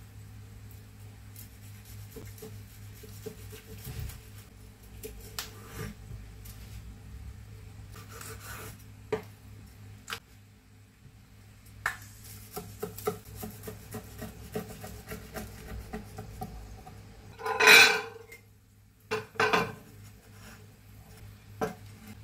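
Chinese cleaver cutting through a crisp-fried egg foo young omelette on a bamboo cutting board: crunchy rasping cuts and light knocks of the blade on the wood. Two louder scrapes come near the end.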